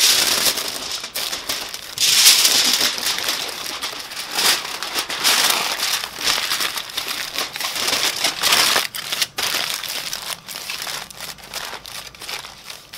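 Aluminium foil crinkling and crackling as hands fold and press a second layer tightly around a foil-wrapped pork butt. It is loudest about two seconds in and again about eight seconds in, and grows quieter near the end.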